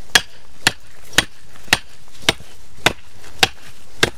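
Hammer blows at a steady pace of about two a second, eight sharp strikes in all.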